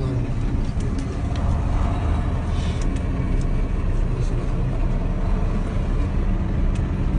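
Steady engine and road noise of a moving vehicle, heard from inside, a low rumble with a few faint clicks.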